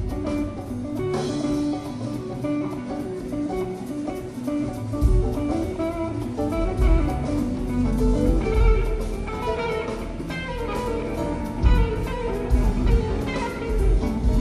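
Live band playing an instrumental jam: electric guitar picking a stepping melodic line over bass and drums with regular cymbal hits.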